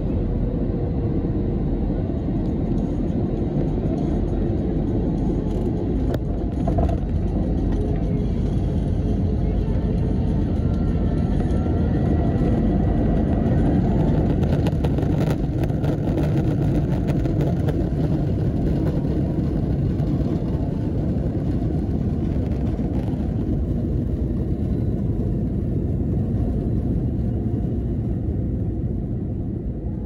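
Jet airliner taxiing, heard from inside the cabin beside the wing-mounted engine: a steady low engine rumble and cabin noise.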